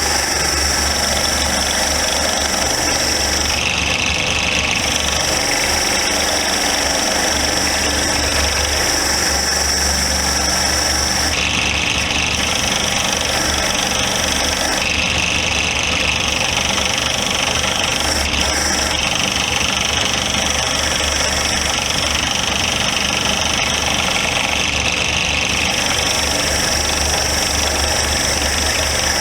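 Motor-driven wire wheel running steadily while a small metal vise part is held against it to scour off rust and old finish. Its high whine drops to a lower note several times along the way.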